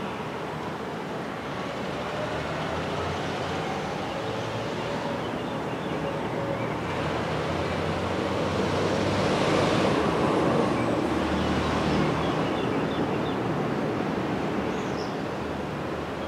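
Steady outdoor noise of traffic that swells into a passing vehicle's rumble about halfway through, then fades again.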